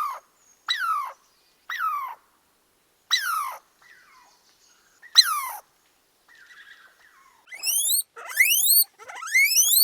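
High-pitched animal calls: five short falling cries about a second apart, then after a pause a quick run of rising squeals in the last few seconds.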